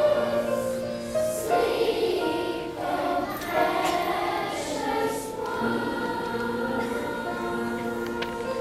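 A children's choir singing, with long held notes.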